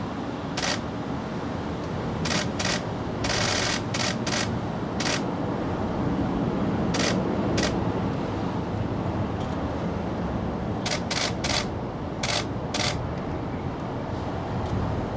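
Steady outdoor background noise with about a dozen short, sharp clicks at irregular intervals, one a slightly longer rasp a few seconds in.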